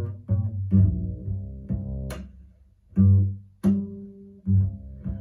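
Solo jazz double bass played pizzicato: a run of separate plucked notes, each with a sharp finger attack and a low, ringing decay, played back through KEF Q750 loudspeakers.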